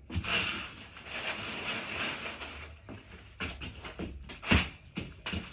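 Rustling for about two and a half seconds, then a few knocks and thumps, the loudest about four and a half seconds in.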